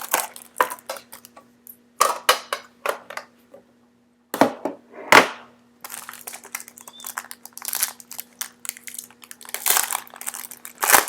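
Trading-card pack wrappers and cards being handled and opened by hand: an irregular string of crinkles, rustles and sharp crackles, with a faint steady hum underneath.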